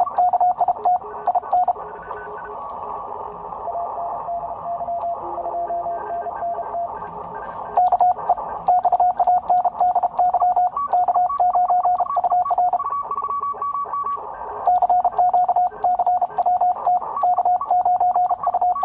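Morse code sent by hand on a paddle through a Heathkit DX40 transmitter with full break-in: a steady tone keyed in dots and dashes, with a small relay clicking along with every element. In a pause of several seconds, and again briefly later on, the Drake 2B receiver's band hiss comes through with other stations' fainter Morse, one of them higher-pitched.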